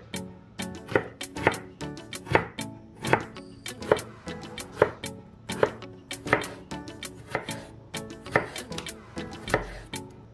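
Kitchen knife cutting raw potato slices into thin strips on a wooden cutting board, the blade knocking on the board about two to three times a second, with soft background music underneath.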